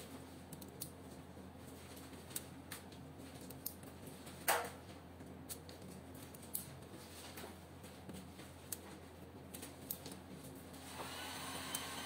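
Faint small clicks and light taps from hands handling a fiber optic patch cord connector on a paper wipe, with one louder scrape about four and a half seconds in. Near the end a steady whirring starts up.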